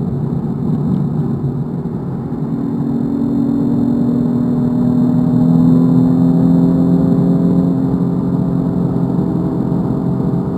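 BMW M4 Competition's twin-turbo straight-six pulling under throttle in fourth gear, heard inside the cabin, its pitch climbing slowly and steadily as the car accelerates.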